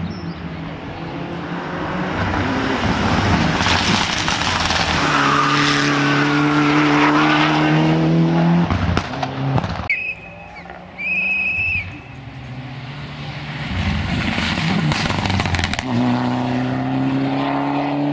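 Rally cars driven hard through tarmac corners: engines revving and climbing in pitch under full throttle, with gear changes. In a lull in the middle, two short high beeps sound about a second apart.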